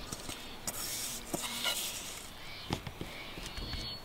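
Hands scraping damp soil mix out of a metal mixing bowl and pressing it into a black plastic seed container: soft rubbing and scraping, loudest about a second in, with a few light knocks.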